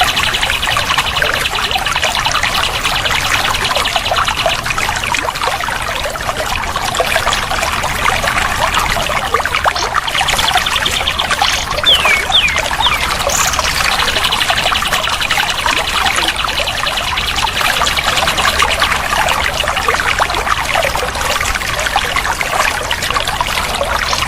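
Water trickling and splashing steadily, with birds calling over it: long, rapid, even trills that come and go in several-second stretches, and a few short sliding notes.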